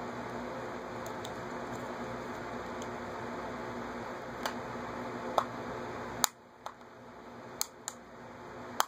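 Small, sharp plastic clicks and snaps, about seven in the last few seconds, as the Samsung Galaxy S's plastic housing is pried at and resists coming apart. A steady background hiss stops suddenly at one of the clicks, about six seconds in.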